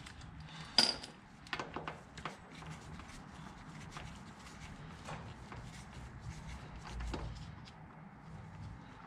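Ratchet and socket loosening the drain bolt on a Honda VTX 1300's shaft-drive final drive: a sharp metal click about a second in, a few more clicks soon after, then a run of faint light clicks as the bolt is worked out.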